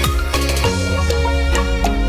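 Music with a steady beat, melody notes held and changing over it.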